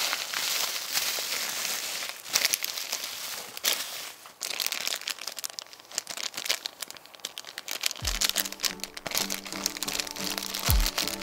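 Bubble wrap and then a thin plastic bag crinkling and crackling as they are handled and opened. Music with deep bass notes comes in about eight seconds in.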